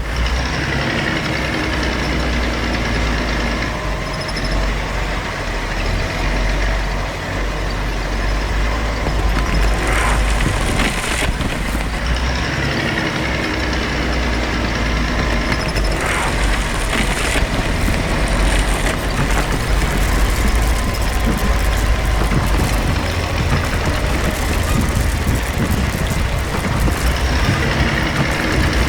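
Heavy diesel vehicle engine running steadily with a deep rumble, with a few brief sharper noises about ten and sixteen seconds in.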